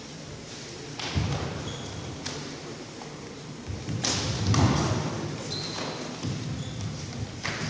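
Dull thuds of punches, kicks and footwork from two fighters in a full-contact kempo sparring bout. The thuds come a few at a time, with the loudest cluster about four seconds in as the fighters close and clinch.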